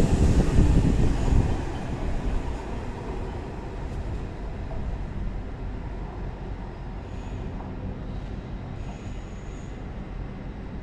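Hull Trains class 802 bi-mode train departing: the rear coaches rumble loudly past close by for about the first second and a half, then the sound drops to a lower steady rumble as the train draws away. Faint high wheel squeals come twice in the second half.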